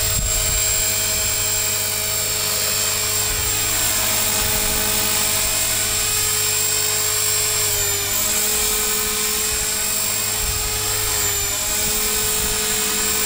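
Battery-powered KDS 450 Pro flybarless RC helicopter in flight: the steady high whine of its electric motor and rotor. The whine dips briefly in pitch twice, about eight and eleven and a half seconds in.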